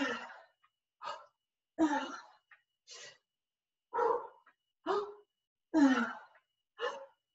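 A woman breathing hard from exertion in time with her exercise reps, about one loud breath a second. Many of the exhales are voiced, falling in pitch like short sighs or grunts.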